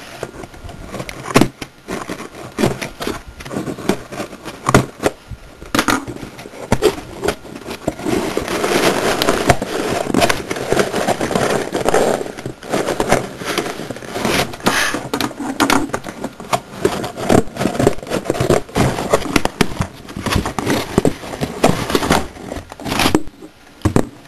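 Cardboard and plastic packaging being handled and opened close to the microphone: rustling, scraping and crinkling with many sharp clicks and knocks, busiest a third of the way in.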